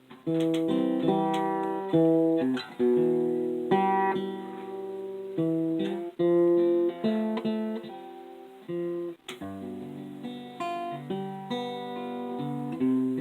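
Acoustic guitar playing a slow instrumental introduction, chords struck about every second or two and left to ring before the singing begins.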